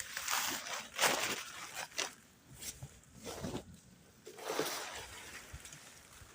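Irregular rustling and swishing as an abandoned sleeping bag, tent and tarp are handled, a burst about every second.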